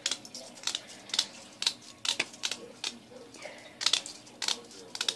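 Small sewing scissors snipping through the fine mesh of a splatter screen along its metal rim: sharp clicks at an uneven pace, roughly two a second.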